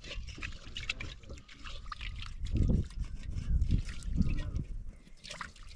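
Water splashing and dripping in a metal basin as hands wash and rub in it, with several low rumbling bursts.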